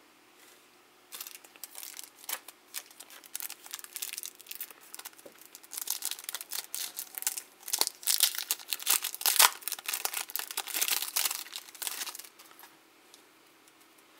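A foil-lined Topps baseball card pack wrapper crinkling and tearing as it is ripped open by hand: a dense run of sharp crackles that thickens in the middle and stops about two seconds before the end.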